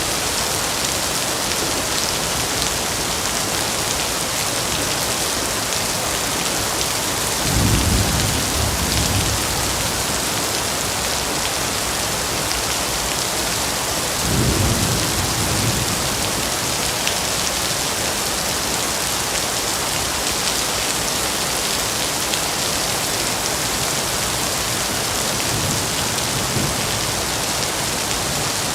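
Steady rain falling in an even hiss, with two short low rumbles of thunder about a quarter and halfway through and a fainter one near the end.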